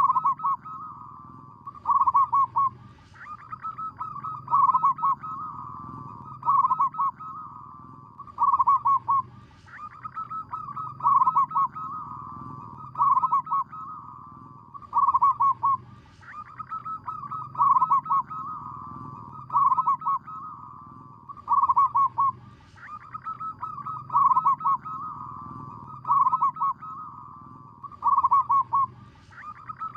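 Zebra dove (perkutut lokal) song: a phrase of quick cooing notes that repeats about every two seconds.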